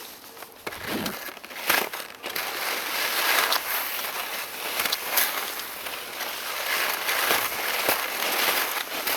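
Skis scraping and crunching over snow, with wind rushing over the camera's microphone. The noise picks up about a second in and then holds fairly steady, with scattered sharp scrapes.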